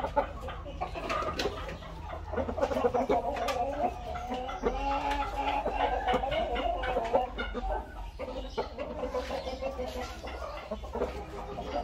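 A flock of chickens clucking and calling together, many overlapping voices.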